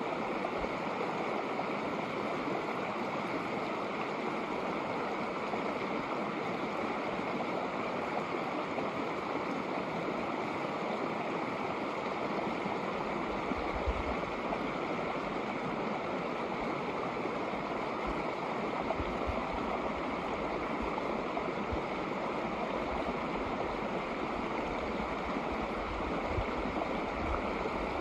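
Shallow snowmelt creek rippling steadily over rocks, a continuous even rush of water.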